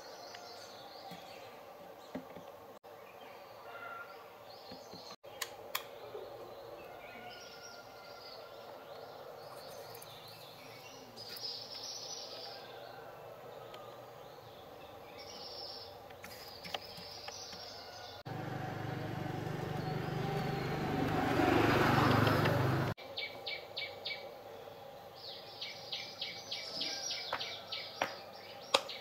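Birds chirping against a steady background hum. For about five seconds past the middle, a louder hissing rush swells and then cuts off abruptly. Near the end comes a quick run of high chirps, about five a second.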